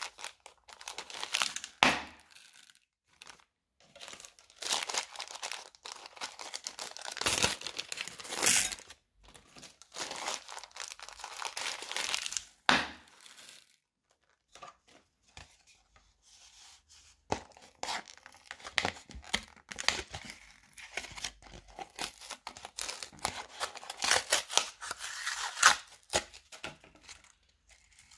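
Thin plastic zip bags crinkling and rustling in bursts as they are handled, opened and emptied. Beads and rhinestones spill onto slime in a glass bowl, with a few sharp clicks.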